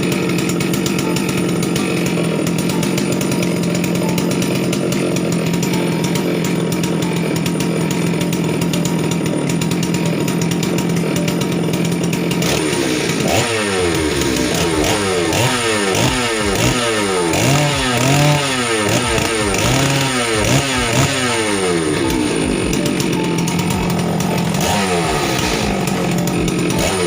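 New Falcon FC 6800 two-stroke chainsaw engine being run in: it idles steadily for about half the time, then is revved up and down repeatedly for several seconds before settling back to idle, with one more short rev near the end.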